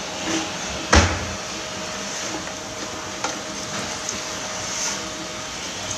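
Steady room hiss with a faint steady hum, broken about a second in by one sharp knock, with a few faint clicks and small handling noises after it.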